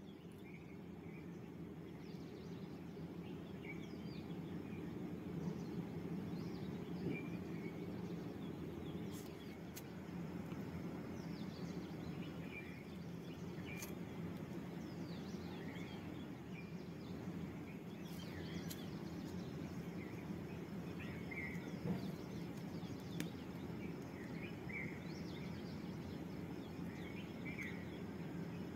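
Outdoor ambience: a steady low background rumble with small birds chirping now and then, short high chirps scattered through.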